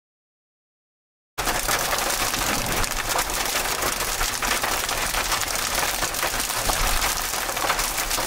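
Silence for about a second and a half, then a sudden loud start of heavy rain pelting a moving vehicle's roof and windshield in a dense, steady patter of hits.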